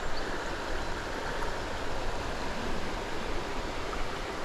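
Shallow creek water running over rocks: a steady, even rushing.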